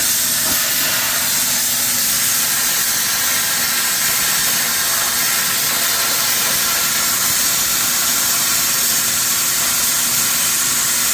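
Lotos LTP7000 70-amp high-frequency plasma cutter's torch cutting on a CNC table: the plasma arc and its air jet give a steady loud hiss that starts abruptly.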